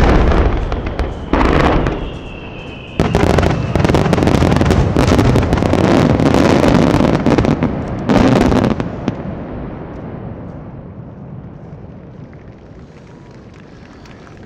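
Large fireworks shells bursting: heavy booms at the start and about a second and a half in, then a dense run of booms and crackling with one more big bang about eight seconds in. A thin falling whistle sounds between the first bursts, and the last few seconds hold only a fading, echoing rumble.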